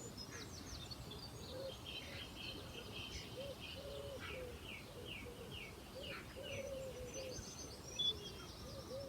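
Faint early-morning birdsong: small birds chirping, one repeating a run of quick falling notes, over a pigeon's low, repeated cooing.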